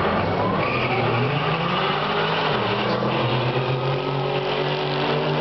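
Two drag cars, one an orange Dodge Neon SRT-4 with its turbocharged four-cylinder, launching off the line and accelerating hard down the strip. The engines rise in pitch and break at a gear change partway through, then the cars pass close by.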